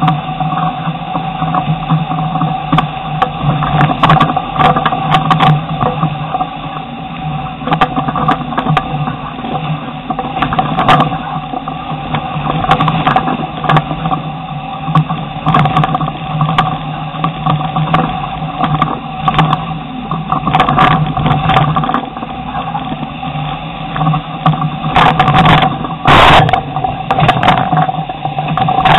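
Off-road Jeep's engine running at a steady low pitch while it crawls up a rock ledge, with frequent sharp knocks and clunks from the tyres and chassis striking the rock, the loudest near the end.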